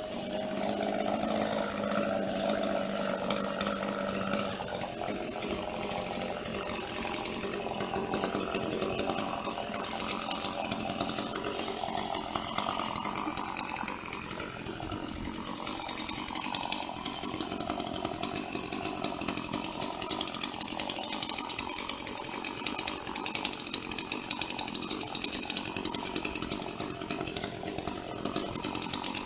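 Chainsaw running continuously while cutting a eucalyptus tree, its engine note steady for the first few seconds and then shifting as it works through the wood.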